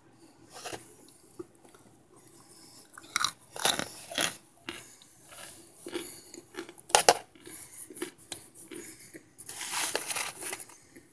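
Chunks of microwaved cornstarch bitten and chewed, giving irregular crisp crunches. The loudest bites fall about a third of the way in and just past the middle, and a longer run of crunching comes near the end.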